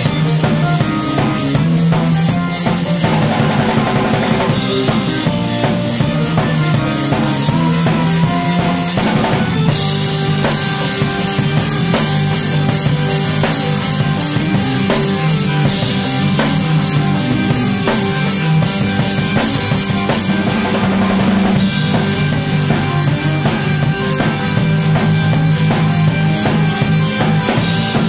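Live instrumental rock: a drum kit playing busy, driving patterns with kick, snare and cymbals over sustained electric bass guitar notes. The cymbals drop out briefly twice, about three seconds in and again near twenty seconds.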